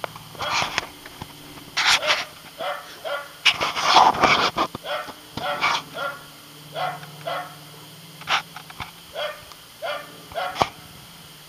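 A dog giving a run of short, irregular play barks and yips, about fifteen over the stretch, densest and loudest around the middle, as it worries at a toy.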